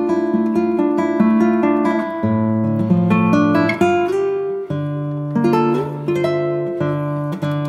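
Background music: a plucked acoustic guitar picking out notes and chords in an even rhythm.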